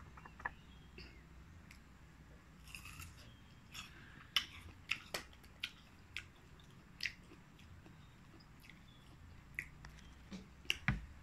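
Someone chewing crisp belimbing buluh (bilimbi) fruit: a string of faint, scattered crunches, thickest in the middle and again near the end.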